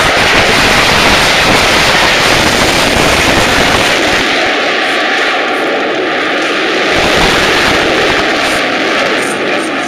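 F-22 Raptor's twin Pratt & Whitney F119 turbofans, a loud, crackling jet noise. It eases a little midway and swells again about seven seconds in.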